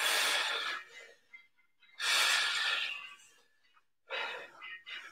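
A man breathing hard from exertion during lunges. There are two long, loud exhales about two seconds apart, then shorter, quieter puffs of breath near the end.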